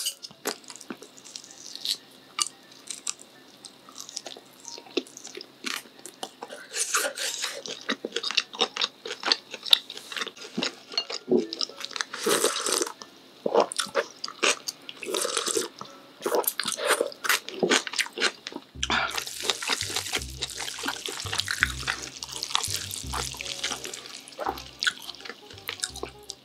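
Close-miked eating sounds: wet chewing and slurping of cold spicy buckwheat naengmyeon noodles, with many short clicks and smacks. About three-quarters of the way through, background music with a low bass line comes in under the eating.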